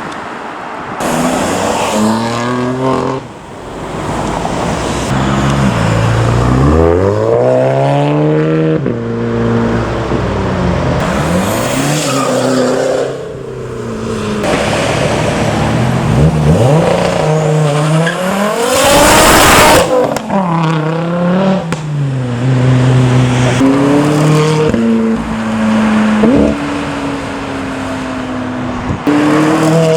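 Cars accelerating hard away from a roundabout one after another, engines revving up and dropping back in pitch as they change gear. About two-thirds of the way in comes a short, very loud noisy burst.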